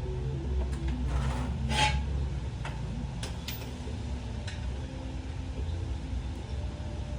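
A car engine running steadily, with a few sharp clicks or knocks about one to two seconds in.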